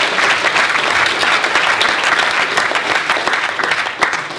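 Audience applauding: a dense, even clatter of many hands clapping that eases off near the end.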